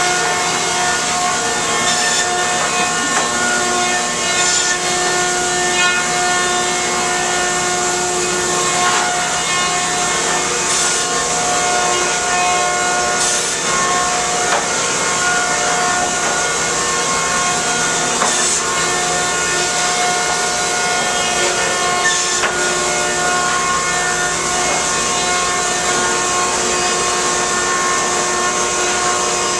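A planer mill's 1976 Newman M68 planer and trim saw running steadily, with a loud machine hum holding several steady tones over a wood-cutting hiss. Short, sharper hissing bursts come every few seconds as boards pass through the cutters.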